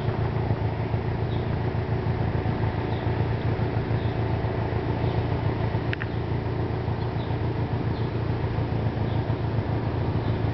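Steady low rumble with faint short high chirps now and then, and a single click about six seconds in.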